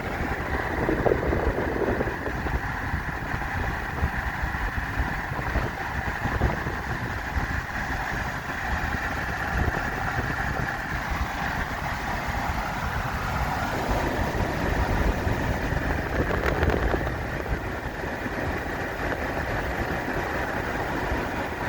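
Car driving at speed, with a steady rush of road and engine noise and gusty wind buffeting the microphone.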